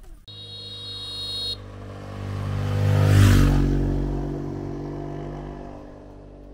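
A motor vehicle passing close by: its engine hum swells to a peak about three seconds in, drops in pitch as it goes past, then fades away. A brief high-pitched tone sounds near the start.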